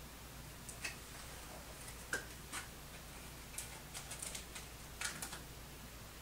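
Soft scattered clicks and taps of a small paper booklet being handled, then set down into a wooden tray, with the strongest tap about two seconds in and a quick run of taps around four to five seconds.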